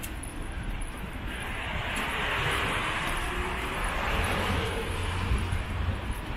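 Road traffic on the bridge: a vehicle passing, its tyre noise swelling about a second in and fading after about four seconds, over a steady low rumble.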